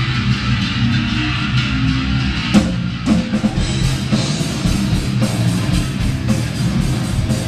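Live band playing loud distorted electric guitar, bass and drums, with a sharp hit about two and a half seconds in followed by a steady pounding drum beat.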